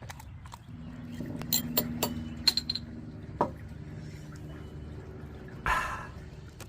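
A series of sharp clicks and clinks over a low steady hum, with a short rushing sound near the end.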